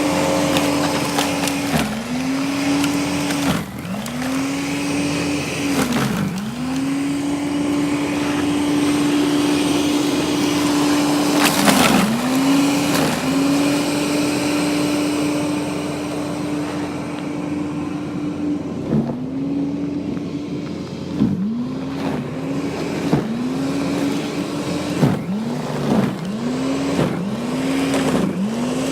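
A small high-revving motor running steadily, its pitch dipping sharply and recovering again and again, more often in the second half, with a few knocks and scraping noise over it.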